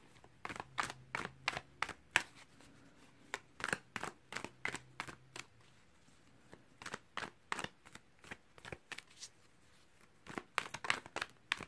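A deck of tarot cards being hand-shuffled overhand: quick runs of light card slaps and flicks in three bursts, with short pauses between them.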